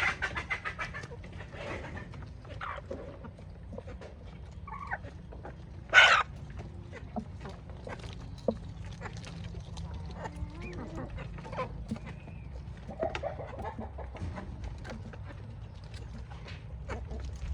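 Chickens and roosters clucking as they feed, with many small sharp taps of pecking throughout and one short loud squawk about six seconds in. A steady low rumble runs underneath.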